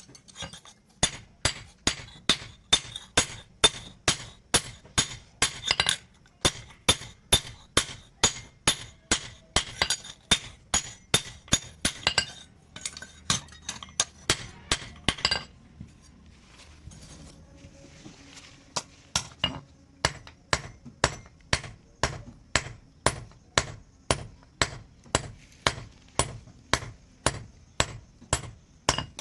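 A hand hammer striking steel on an anvil in a steady rhythm of about two blows a second, each blow ringing, with a pause of a few seconds about halfway through before the blows resume; the work is forging truck leaf-spring steel into a blade.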